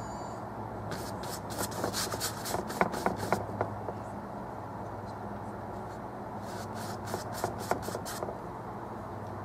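Paintbrush strokes scratching oil paint on, in two runs of short rubbing strokes, over a steady low hum.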